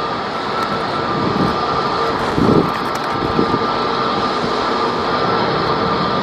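Airbus A320 jet engines at takeoff thrust, heard from a distance as a steady roar with a faint whine, mixed with heavy rain. A gust of wind buffets the microphone about two and a half seconds in.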